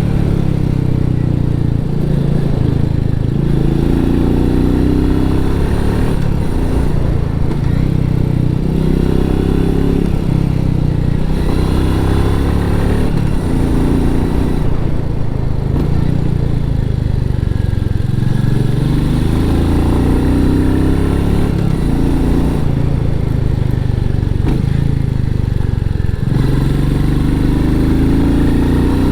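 Royal Enfield Meteor 350's single-cylinder engine through its stock exhaust, the bike being ridden with the engine note rising and falling every few seconds as the throttle opens and closes.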